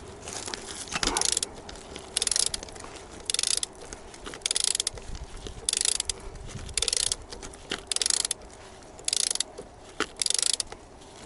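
Ratchet wrench clicking in short bursts about once a second, each burst a back-stroke while a nut is being undone.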